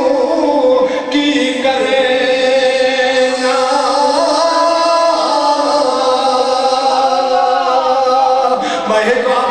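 A man's voice chanting a devotional melody unaccompanied, with long held notes and slow, winding ornaments that glide up and down.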